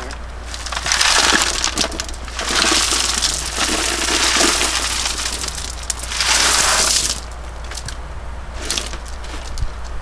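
Small river pebbles pouring out of a plastic crate and clattering onto a heap of gravel, in three long pours, then a short rattle near the end as they are spread by hand.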